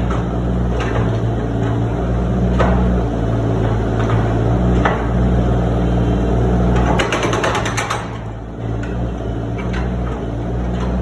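Heavy demolition machinery running with a steady low diesel drone, and separate cracks and crashes of breaking material every second or two. About seven seconds in, the drone drops away and there is a short burst of rapid hammering, like a hydraulic breaker.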